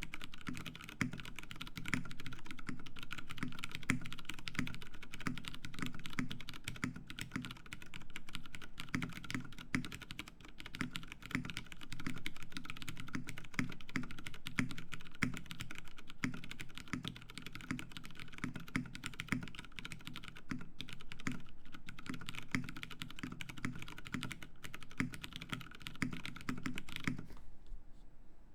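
Mechanical keyboard (The60, lubed Cherry MX Brown tactile switches on an aluminium plate with plate foam) being typed on in a fast, continuous run of keystrokes. The typing stops for about a second near the end.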